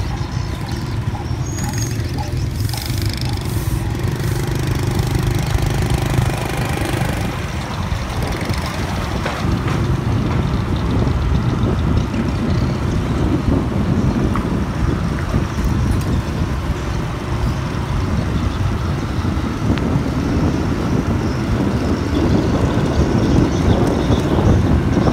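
A vehicle running steadily: a continuous low rumble of engine and road noise.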